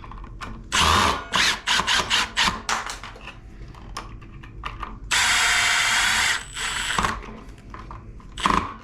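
Cordless power screwdriver driving in the light switch's mounting screws: a series of short whirs and clicks, then one steady run of about a second and a half.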